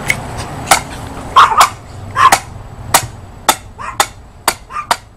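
Hammer blows pounding down the post of a wrought-iron garden arch, a steady series of sharp strikes about two a second, the loudest of them a little under two seconds in.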